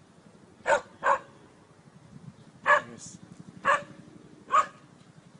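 A dog barking: five short barks, a pair about a second in, then three more about a second apart.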